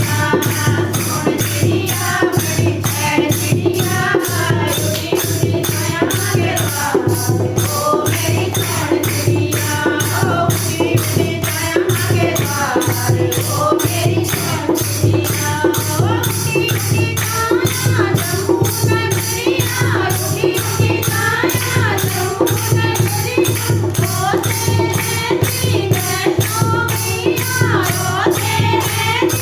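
Kirtan group singing a devotional bhajan to a steady percussion beat of about three strokes a second, over a sustained low drone.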